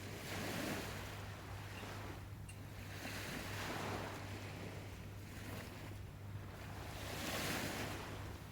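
Waves washing onto a shore: rushing water that swells and falls back three times, a few seconds apart, over a steady low hum.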